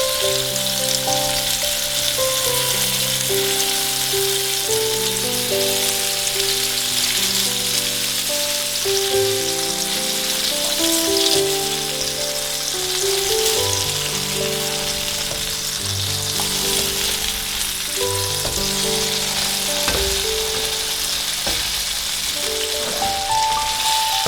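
Food frying in a pan, a steady sizzling hiss, under soft background music with a slow melody of held notes.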